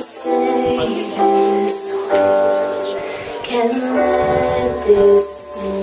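A woman singing with live electronic keyboard accompaniment, amplified through a PA.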